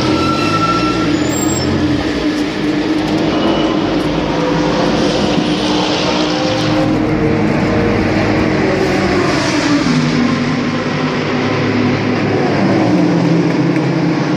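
Race car engines running in the pit lane: a steady, loud drone whose pitch shifts slightly now and then.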